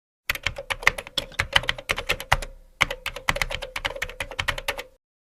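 Rapid typing on a computer keyboard: two quick runs of key clicks with a short pause about two and a half seconds in, over a faint steady tone.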